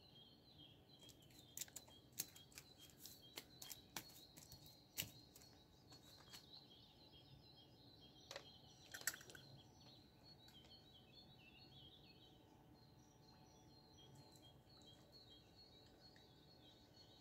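Faint birdsong, many small chirps, with a run of sharp clicks and taps over the first half, the loudest about five and nine seconds in.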